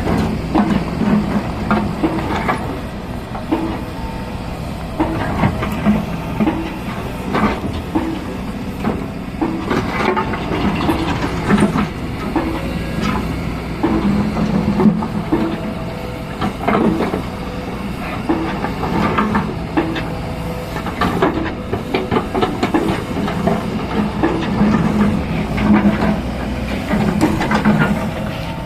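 Excavator at work: its diesel engine runs steadily under load, with frequent metal knocks and clanks from the machine.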